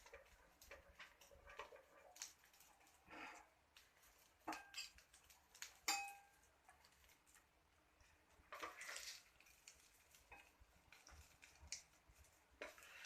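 Quiet, scattered clinks and scrapes of a cooking utensil against a pan and plate as an omelette is moved onto the plate, with one sharper ringing clink about six seconds in.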